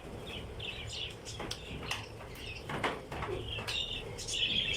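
Small pet parrots chirping in short scattered calls, with a few sharp clicks, louder near the end.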